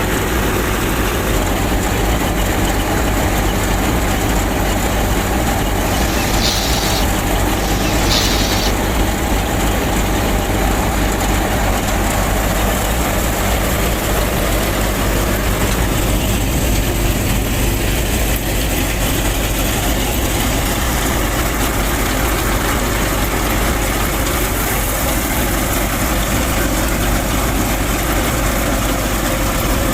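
A machine's engine or motor running steadily with a constant low hum. Two brief higher-pitched sounds break in about six and eight seconds in.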